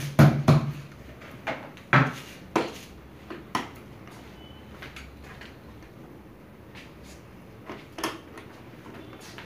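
Knocks and clicks from the plastic panels and parts of a Daikin ceiling cassette air conditioner's indoor unit being handled during servicing: a quick run of them in the first few seconds, then one more about eight seconds in.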